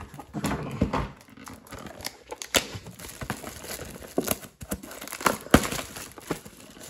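Clear plastic shrink-wrap crinkling and crackling as it is pulled off a cardboard trading-card box, with a few sharper crackles along the way.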